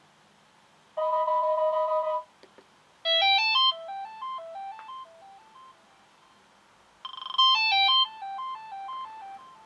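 Sonim XP6 rugged phone's loudspeaker playing its ringtones: a steady electronic tone chord about a second in, then a faint click, then a new ringtone of quick bright electronic notes that trail off into fainter repeating notes, played a second time about seven seconds in.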